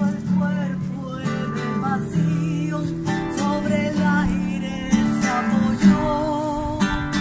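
Acoustic guitar strummed in a steady rhythm, with a wavering melodic line over it.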